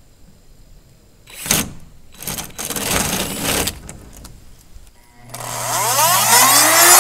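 A cordless drill running in two short goes, about a second and two to four seconds in, as it bores into the polycarbonate panel. About five seconds in a handheld rotary cutting tool starts up with a rising whine and settles into a steady high whine.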